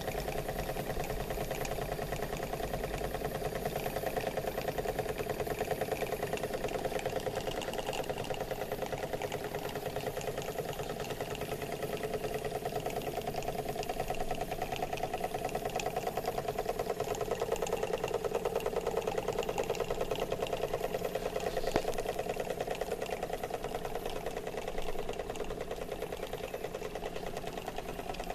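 Small live-steam model engines running steadily, giving a fast, even mechanical clatter over a steady hum.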